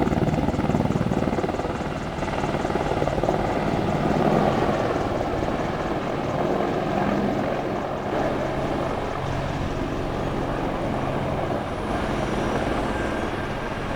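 Aircraft engine noise at an airshow, a steady drone easing off slightly as it goes.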